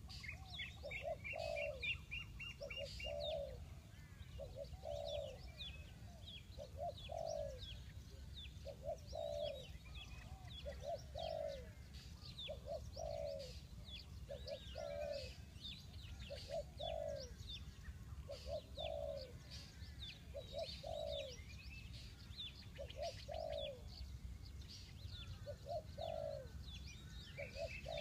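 Spotted dove cooing, repeating the same short two-note phrase about every two seconds, with small birds chirping at a higher pitch throughout.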